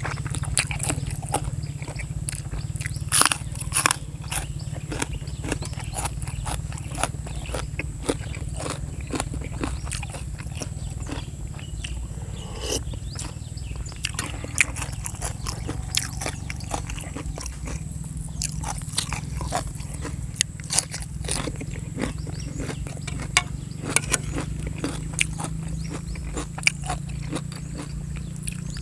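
Close-up eating sounds: a person chewing and crunching chicken feet and raw vegetables, with frequent short wet clicks and smacks. A steady low rumble runs underneath.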